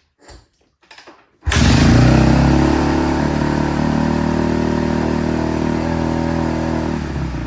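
Kawasaki KX250F four-stroke single-cylinder dirt bike engine catching about a second and a half in, after a few short knocks, and then running steadily on choke at a raised idle, settling to a lower, choppier idle near the end. It fires now that the too-tight intake valves have been re-shimmed and compression restored.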